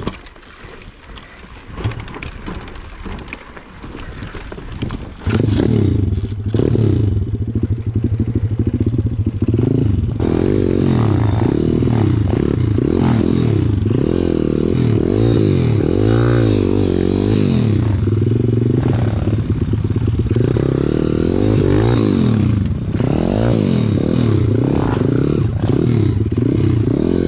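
A single-cylinder four-stroke pit bike engine, heard from on the bike. For about the first five seconds it is quieter among clattering and scraping; then it runs loud, with the revs rising and falling again and again as the throttle is worked along a slow trail.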